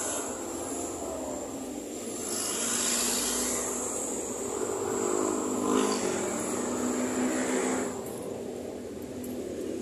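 Street traffic: vehicles passing, with an engine hum that swells and fades about halfway through.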